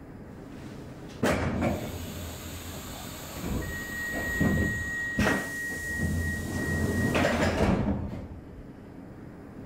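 Stockholm Metro C6 train's sliding doors closing before departure. Noise starts suddenly about a second in, and a steady high warning beep is held for about three and a half seconds. A sharp thunk comes about five seconds in, and the noise dies away at about eight seconds.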